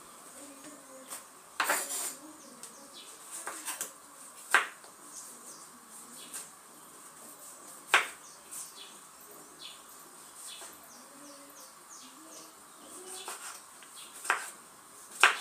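Kitchen knife chopping tomatoes on a wooden cutting board: sharp knocks of the blade against the board, irregular and a few seconds apart, with quieter cutting between.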